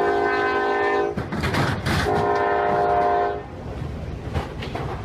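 Locomotive air horn sounding two long blasts, each a chord of several notes, the second ending about three and a half seconds in, over the low rumble of a moving train.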